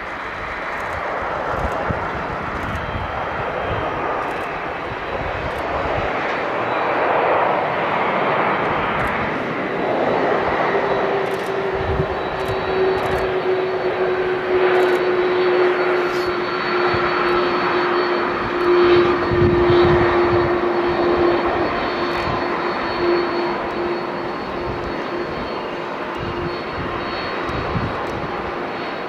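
Boeing 767 jet airliner landing and rolling out, its jet engines making a broad, steady noise. About ten seconds in, a steady engine tone comes up and sags slightly in pitch as the aircraft slows, and the sound is loudest about two-thirds of the way through.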